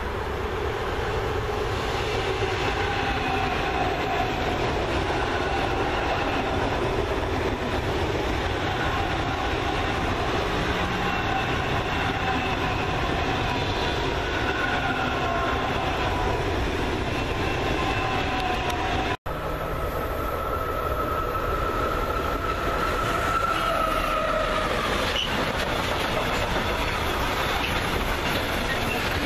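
An ICE 3 high-speed electric train runs past on the rails, with faint high tones drifting in pitch over the rolling noise. An abrupt cut about 19 seconds in brings in a long container freight train rolling past.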